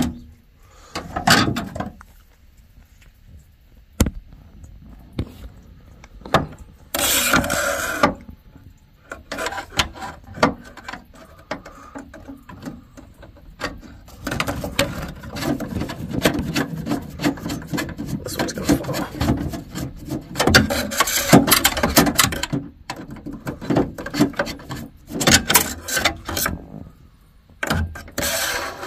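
Hand work with tools on water-heater parts: scattered clicks and knocks, a scraping burst about seven seconds in, then a long stretch of rapid clicking and rubbing.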